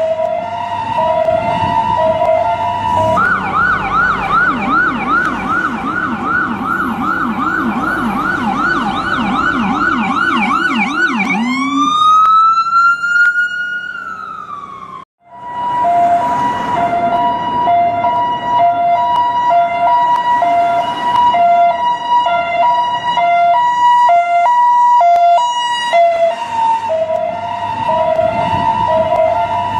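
US ambulance electronic siren cycling through its patterns: an alternating two-tone hi-lo, then a fast yelp for about eight seconds, then a single long wail that rises and slowly falls before cutting off abruptly. After a brief gap the hi-lo two-tone resumes.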